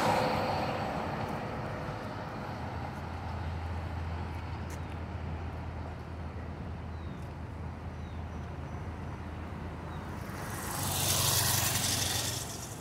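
Night street traffic: a steady low engine hum, then a motorcycle passing close, rising and fading over about two seconds near the end.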